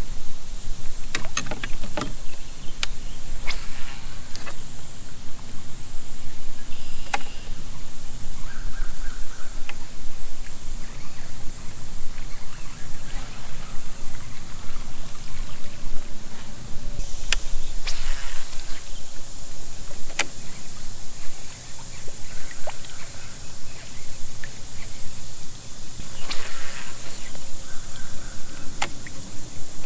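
Outdoor sound from a fishing kayak: a steady high hiss with scattered sharp clicks and knocks of gear against the boat.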